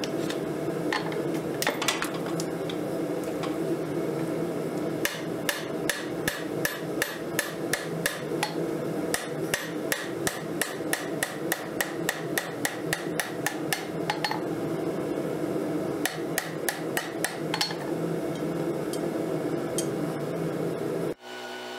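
Hand hammer striking a glowing 1080 high-carbon steel railroad spike on an anvil, drawing out the knife blade: a steady run of sharp blows about three a second with a few short pauses, over a steady hum. The hammering cuts off suddenly near the end.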